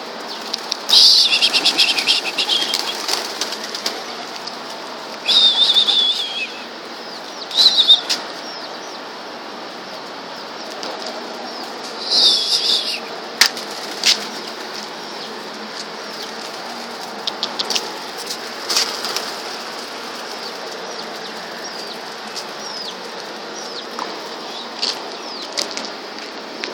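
A flock of white pigeons flapping and clapping their wings in loud bursts as they take off and fly, with high falling whistle-like tones in some bursts. The bursts come several times in the first half, then fade to scattered wing claps over a steady hiss.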